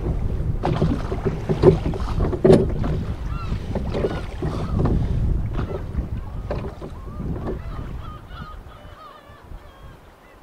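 Rowboat being rowed: regular knocks of the oars in their oarlocks over water and wind rumble, fading out after about eight seconds as the rowing stops. Faint bird calls chirp through the second half.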